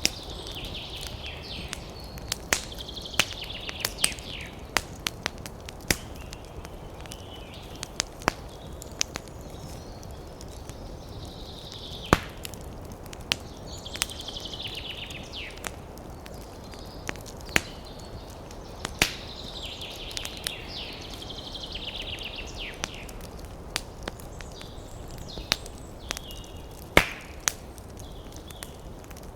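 Wood fire crackling, with irregular sharp pops over a steady low rush of flame. The loudest pops come about 12, 19 and 27 seconds in.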